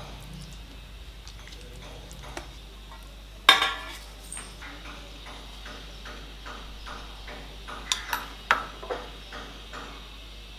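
Clinks of a metal spoon against a glass baking dish: one loud ringing clink about three and a half seconds in and two more near the eight-second mark, with faint light taps between.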